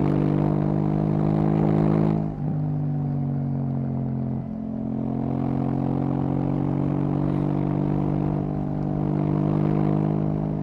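KTM 790 Duke's parallel-twin engine through an Akrapovic exhaust, pulling under way. It breaks twice, about two seconds apart, with a short dip as if changing gear, then runs steadily.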